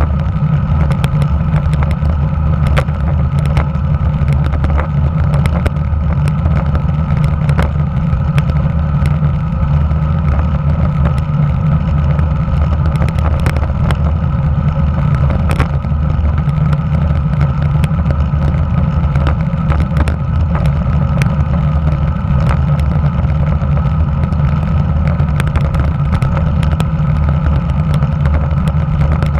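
Steady wind and road rumble picked up by a camera mounted below the handlebars of a Giant TCR road bike rolling along asphalt, with scattered sharp ticks and knocks from road vibration.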